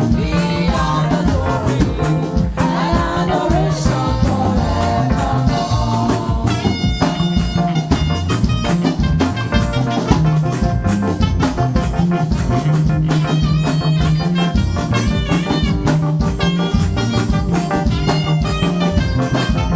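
Live gospel praise band playing an upbeat instrumental passage, with a steady drum-kit beat and a repeating bass line under keyboard or guitar.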